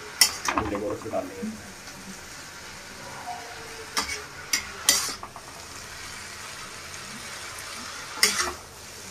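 Chow mein noodles being stir-fried in a black iron kadhai: a steady sizzle, with a metal utensil clinking and scraping against the pan several times, around four and five seconds in and again near the end.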